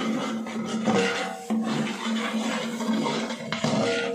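Long slotted metal spoon stirring and scraping against the sides and bottom of a large metal pot of onion-tomato masala frying in fat, in irregular strokes over a steady low hum.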